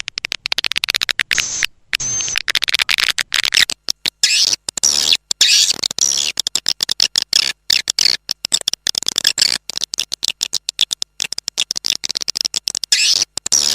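Recorded swiftlet calls: a dense, rapid, high-pitched twittering chatter, with a brief break about two seconds in. It is a lure call of the kind played to draw swiftlets into a nesting house.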